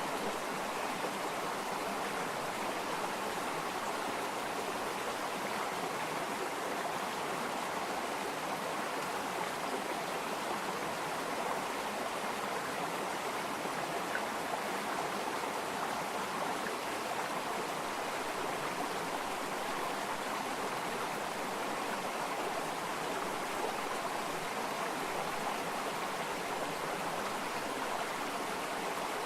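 Water flowing in a stream, a steady, even rush with no breaks.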